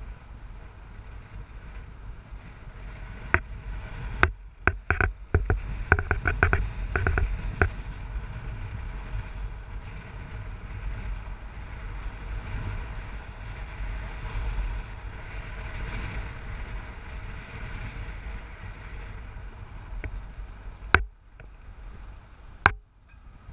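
A car driving along a paved road, its engine and tyre noise a steady low rumble. A cluster of sharp knocks and rattles comes about four to eight seconds in, and two more single knocks near the end.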